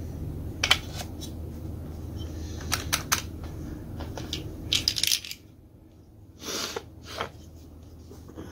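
Sharp metallic clicks and clinks of small parts and hand tools as a STIHL MS180C chainsaw's carburetor area is put back together by hand: a few separate clicks, then a tight cluster about five seconds in, followed by a brief rustle. A low background hum drops away about five seconds in.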